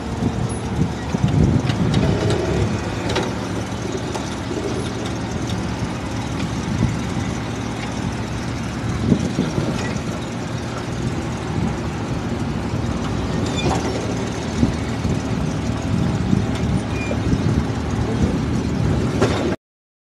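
Off-road 4x4 vehicle engine running under load, with scattered knocks and rattles. The sound cuts off abruptly near the end.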